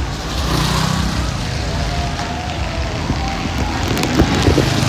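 Pickup truck engines running in crawling traffic, a steady low hum with street noise around it. There are a few knocks about four seconds in.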